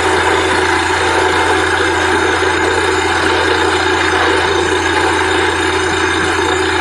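Borewell drilling rig running, a loud steady mechanical drone with no change in pitch or rhythm.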